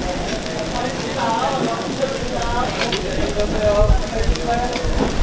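Takoyaki batter sizzling as it fries on a hot griddle, with voices of people nearby. A low rumble comes in about two seconds in.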